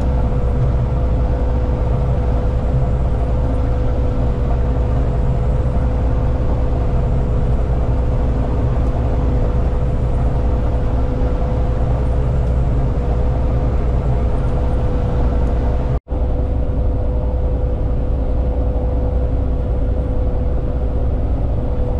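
Massey Ferguson 7244 combine harvester running steadily while cutting wheat: a deep, even engine drone with a steady whine held on one pitch. The sound drops out completely for an instant about sixteen seconds in.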